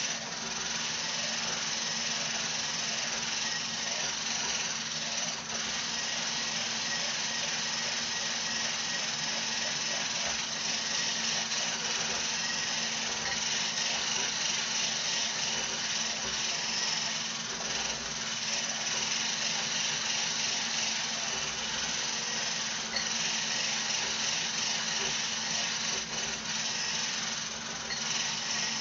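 Handheld immersion (stick) blender running steadily in a glass of heavy cream, vanilla and coffee, whipping it toward stiff peaks. The motor gives a constant hum with a hiss of churning cream, dipping briefly a few times.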